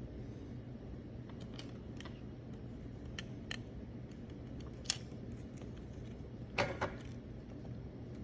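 Scattered small clicks and rattles of Xbox One controller plastic parts being handled, the loudest a short cluster about six and a half seconds in, over a steady low hum.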